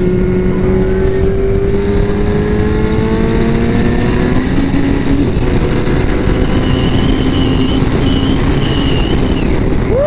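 Yamaha R1's 1000cc inline-four engine pulling hard under acceleration, its note rising steadily and changing about halfway through, under heavy wind rush on the rider's microphone.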